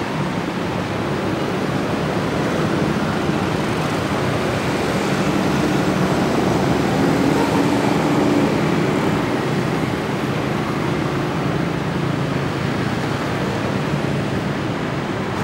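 Diesel-electric locomotive's engine running as it slowly hauls a rake of passenger coaches during a shunting move: a steady low engine drone with wheel-on-rail noise, swelling a little midway.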